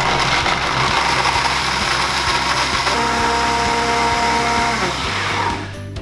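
High-speed blender running at speed, churning a thick cashew sauce mixture, then cutting off near the end. Its display flags cavitation, an air pocket around the blade, because the mixture is too thick.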